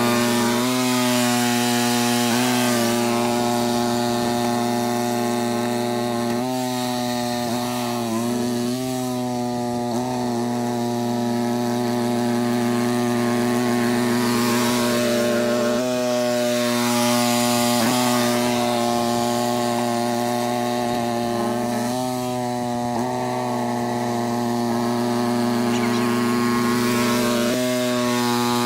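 Cub Cadet 2X 30-inch EFI two-stage snow blower engine running steadily, its pitch dipping briefly every few seconds.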